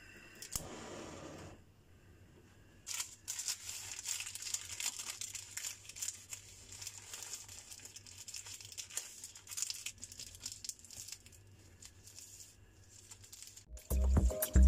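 Baking paper crinkling and rustling in fits and starts as hands fold it back from a piece of raw meat. Music comes in loudly just before the end.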